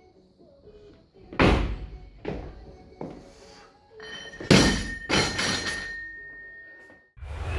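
A weightlifter's jerk: a heavy thud as the feet land under the bar about a second and a half in, with two lighter knocks after. About four and a half seconds in, the loaded barbell with rubber bumper plates is dropped from overhead onto the floor, bounces once, and the bar rings on briefly.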